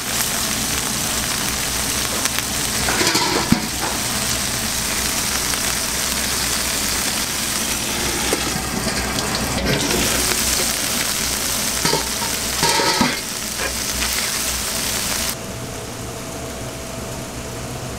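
Burger patties and fat sizzling on a hot flat-top griddle, a steady dense hiss, with a few short metal scrapes and clinks of cooking utensils. Near the end the sizzle cuts off, leaving a quieter background.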